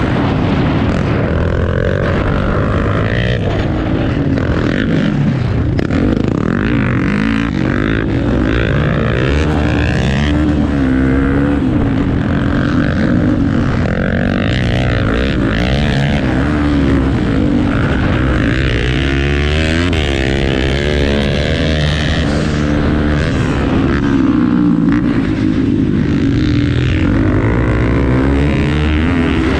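Off-road motorcycle engines revving up and down through the gears, more than one at a time, their pitches rising, falling and crossing.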